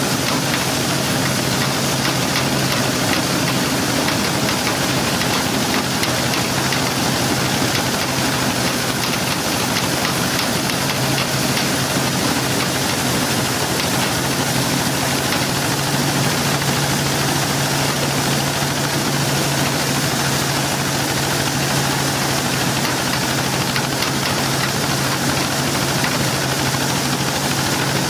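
A small tractor's engine running steadily, driving a corn sheller as cobs are fed in, with a continuous hissing rattle from the machine over the low engine hum.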